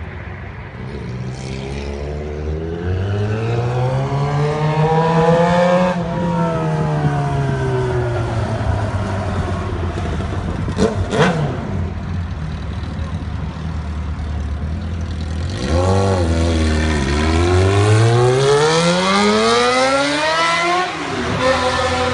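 Suzuki GSX-R motorcycle engine running with the exhaust deleted, so it runs unmuffled. It idles and is revved up and back down twice, each rev rising and falling over a few seconds. A single sharp crack comes about halfway through.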